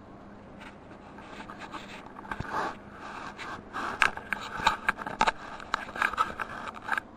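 Irregular scraping and clicking, like objects being handled or dragged, starting about half a second in and growing louder and busier in the second half before stopping abruptly.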